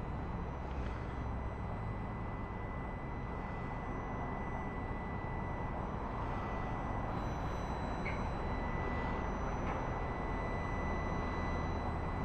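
Steady whirring of a small electric cooling fan fitted to a Ducati Streetfighter's regulator/rectifier, with a thin steady whine, over a low steady rumble. The fan is there because the regulator/rectifier runs very hot when the bike sits stopped.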